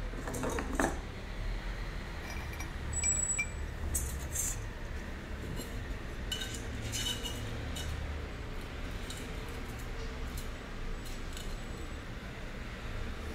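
Light clicks and clinks of hand work on a tabletop: small glaze jars set down, then an unglazed ceramic lamp base and a steel ruler handled, with scattered sharp ticks. A low steady rumble lies underneath.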